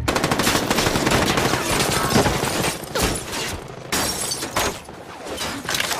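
Automatic gunfire in a film shootout. There are dense rapid bursts of shots for about the first three seconds, then several separate bursts about a second apart.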